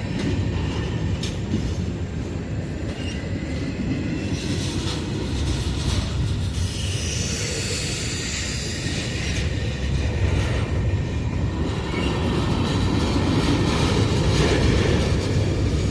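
CSX freight train of autorack cars rolling past, with a steady low rumble of wheels on rail. Higher-pitched wheel squeal rises for a few seconds about halfway through.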